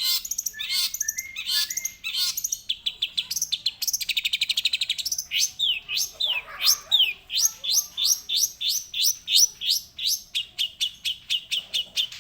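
Young long-tailed shrike singing a continuous, varied chattering song: scattered sharp chirps at first, then fast runs of rapidly repeated high notes and quick falling notes.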